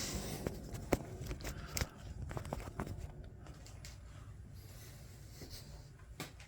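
Light clicks and knocks of a steel square and measuring gear being handled and repositioned on the mill table. They are scattered through the first three seconds, then thin out to a faint steady hum.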